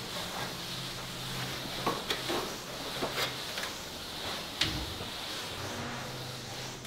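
Felt float rubbed over fresh finishing plaster, a soft rasping scrub as the wall is felted smooth. A few sharp knocks break in, the loudest about four and a half seconds in.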